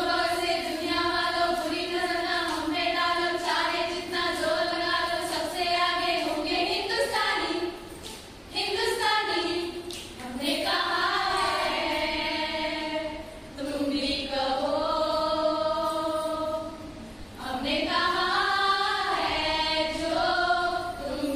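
A group of women singing a patriotic song together in unison. They hold long notes in phrases, with short breaks for breath between them.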